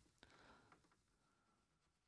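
Near silence: room tone, with one faint click.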